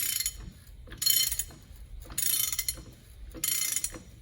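Ratchet wrench clicking in repeated strokes, about one a second, running the spindle nut down on a truck's front wheel hub to seat the hub seal.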